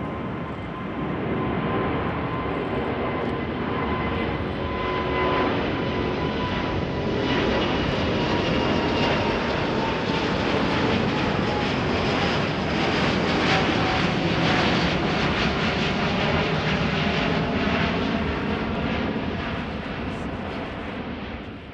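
Airbus A350-900's two Rolls-Royce Trent XWB turbofans at climb thrust just after takeoff: a loud, steady jet roar with a whining tone that slowly falls in pitch as the airliner passes and moves away. The roar swells in the first couple of seconds and fades near the end.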